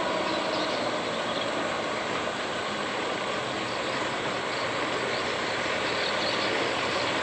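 The diesel engine of a truck loaded with oil palm fruit, labouring steadily as it climbs a steep, rough dirt hill.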